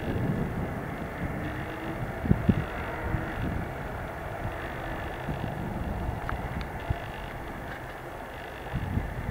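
Mercedes-Benz Actros 4141 tipper truck's V6 diesel engine running steadily under load as the truck drives uphill at full speed, a low rumble with a couple of sharp thumps about two and a half seconds in.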